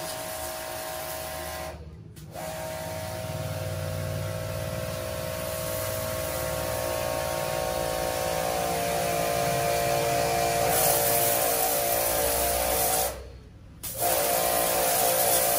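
Kawasaki HPIM 1800 pressure washer running, its motor and pump humming steadily under the hiss of the water jet spraying a concrete floor. The sound cuts out briefly twice, about two seconds in and near the end, and grows slowly louder in between.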